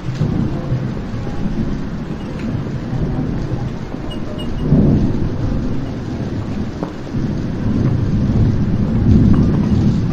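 Low, continuous thunder rumble over a steady hiss like rain, swelling about five seconds in and again near the end.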